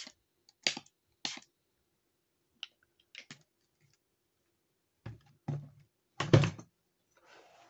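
Objects being handled on a tabletop: a string of short, sharp clicks and knocks, then a few heavier thumps about five to six and a half seconds in, over a faint steady hum.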